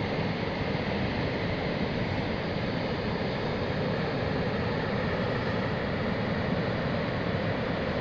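Dettifoss waterfall's huge volume of water plunging over the falls: a dense, steady rush with a deep rumble beneath, unchanging in level.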